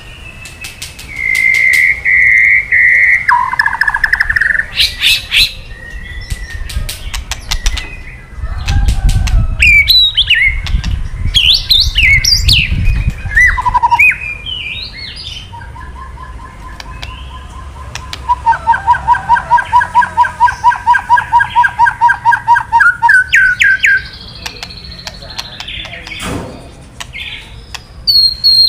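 White-rumped shama (murai batu) singing a loud, varied run of whistles, slurred notes and sharp clicks. Past the middle comes a fast rattling 'kretekan' trill of about ten notes a second lasting some five seconds. This rattle is the excited, aggressive song of a male shama.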